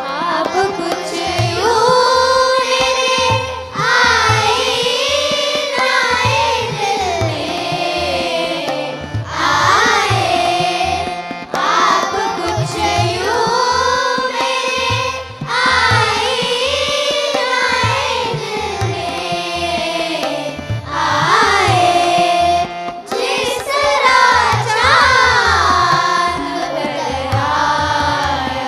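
Hindustani classical vocal in Raag Kedar: a woman sings long phrases that glide and ornament between notes, accompanied by regular tabla strokes over a steady drone.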